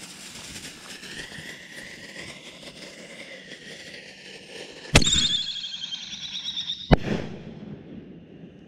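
Consumer artillery-shell firework fired from a mortar tube. A hiss with a faint whistle runs for the first few seconds. At about five seconds a sharp launch bang sets off a loud, high whistle that slowly falls in pitch, and about two seconds later a second sharp bang marks the shell bursting.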